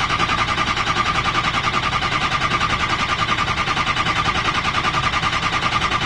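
Ford 6.0 Powerstroke V8 diesel being cranked by its starter in a quick, even rhythm of compression pulses with a steady starter whine, never catching: a crank, no-start, with no injection control pressure reading.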